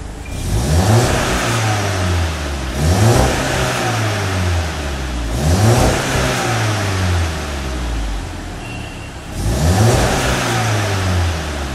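Skoda Octavia 1.8 TSI's turbocharged four-cylinder engine, fitted with an IS20 turbo, a stainless performance downpipe and a VRS245 twin-outlet exhaust, blipped four times from idle. Each rev rises quickly and falls back slowly to idle. The revs are kept short because the car runs untuned and would go into limp mode.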